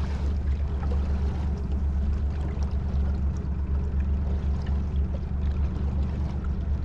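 Boat motor running steadily at trolling speed, a constant low drone, with water rushing and splashing along the hull.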